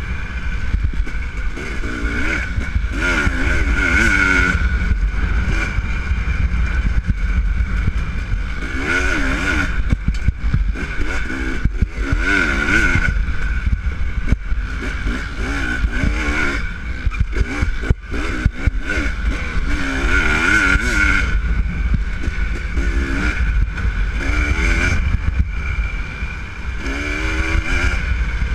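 Dirt bike engine heard close up from the bike itself, revving up and dropping back over and over as the throttle opens and closes on the trail, with a steady low rumble under it.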